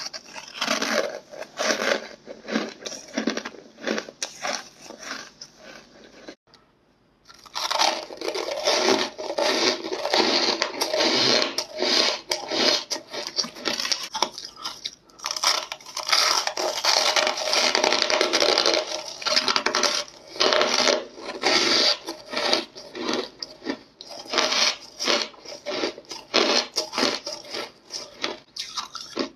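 Ice being bitten and chewed, with many sharp crunches in quick succession. The crunching breaks off briefly about six seconds in, then resumes denser and louder.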